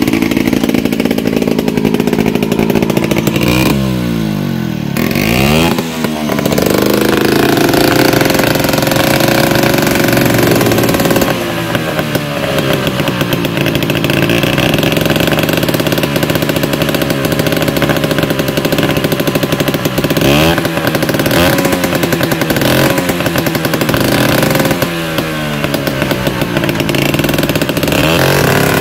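Vespa scooter engine running loud and being revved again and again, its pitch sweeping up and falling back several times: an engine test before a ride.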